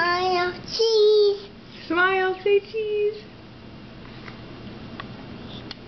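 A toddler babbling in a high sing-song voice: four short, drawn-out syllables in the first three seconds, then quiet with a couple of faint clicks near the end.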